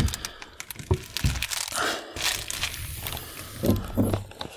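Irregular crinkling and rustling, with a few soft low thumps.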